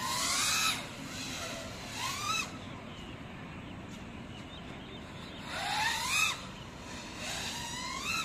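GEPRC Mark5 5-inch FPV quadcopter's motors whining up in pitch with each throttle punch, four times, each rise cutting off suddenly as the throttle is chopped for flips and power loops.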